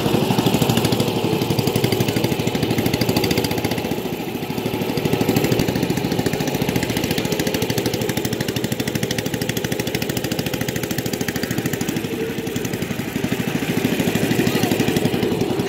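Small boat's engine running steadily under way, a fast even firing pulse.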